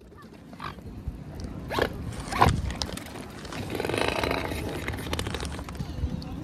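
Mute swans at close range: a few short, sharp sounds, then a longer rasping, rapidly pulsing sound starting about three and a half seconds in and easing off about a second and a half later.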